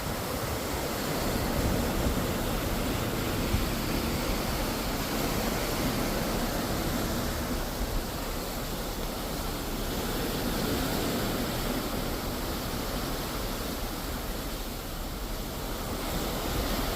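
Ocean water rushing and surging, a steady noise that slowly swells and eases, with low wind rumble on the microphone.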